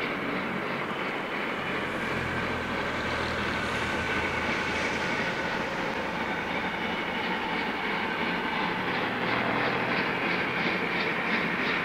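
Distant steam locomotive, the 1923 Mallet E211, working toward the listener. Its exhaust beats come through about seven seconds in at roughly three a second and grow slightly louder.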